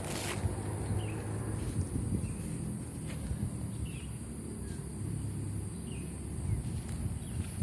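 Outdoor countryside ambience: a steady high-pitched insect chorus, with a few short bird chirps over a low rumble.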